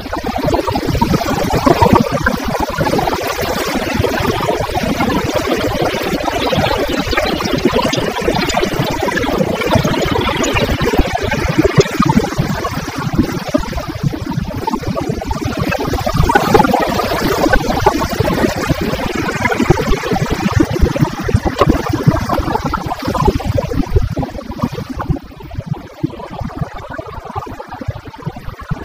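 Wind rushing over the helmet camera's microphone as a BMW F800GS is ridden through city streets, its parallel-twin engine running under the wind noise. The rushing eases near the end as the bike slows.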